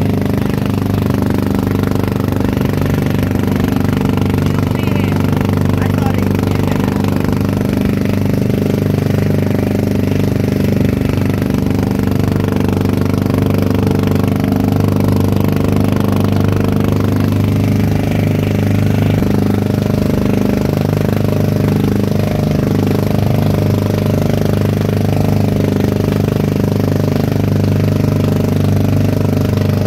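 Engine of a motorized outrigger boat (bangka) running steadily as the boat travels, a constant loud drone.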